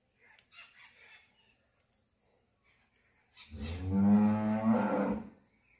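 An ox mooing: one long, low moo lasting about two seconds, starting about three and a half seconds in. A few faint clicks come before it.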